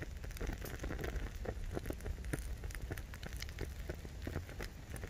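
Small gel-fuel fire burning in a folding steel camping stove, with irregular crackling and ticking, over a steady low rumble of wind on the microphone.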